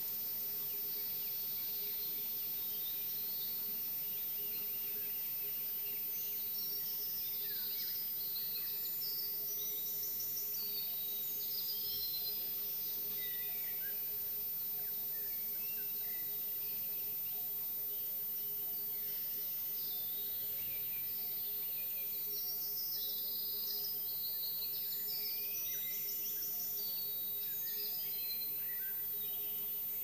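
Dawn chorus of several songbirds singing together: quick chirps and trills overlapping, busiest in two spells, the first a quarter of the way in and the second two-thirds of the way in. A steady low hum runs underneath.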